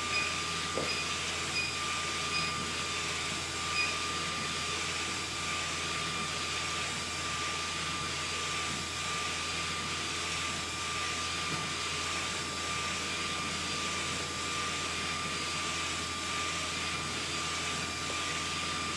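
SK UV6145 UV inkjet printer running steadily while printing: an even mechanical hiss with a thin, high, steady whine, and a few faint ticks in the first few seconds.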